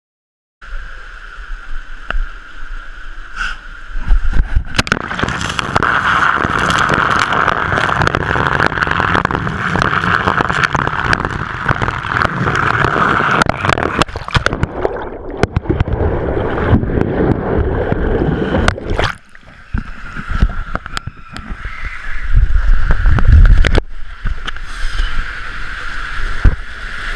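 Water rushing and splashing around someone riding down a water slide, muffled through a GoPro's waterproof housing. The rush grows loud about four seconds in, drops away briefly about two-thirds of the way through, then comes back with a heavy low rumble.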